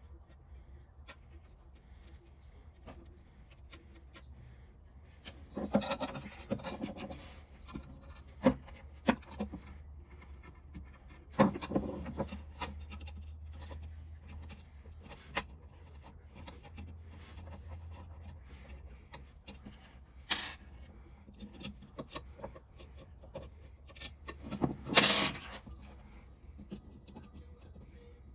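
Intermittent rubbing and scraping of hand work on an object, with scattered sharp clicks and knocks; the longest scrapes come about six, eleven and twenty-five seconds in, over a low steady hum.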